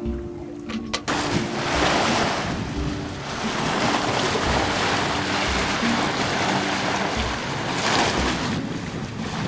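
Wind on the microphone and the rush of sea water along a sailing yacht under sail, engine off. It makes a steady, loud rushing that swells in about a second in.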